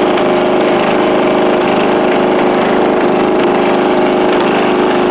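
Riding lawn mower's engine running loud and steady through a custom exhaust.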